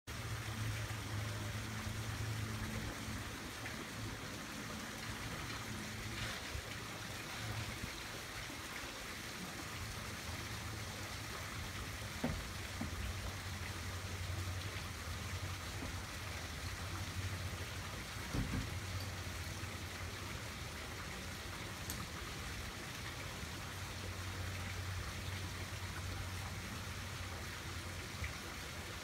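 Steady outdoor hiss, like running or trickling water, with a low hum that comes and goes and a few faint knocks.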